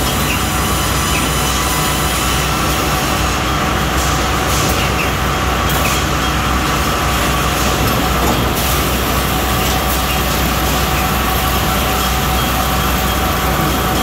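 Automated sawmill board-handling line running: steel chain conveyors and roller tables moving boards, a steady loud machinery noise with a low hum and a few faint knocks.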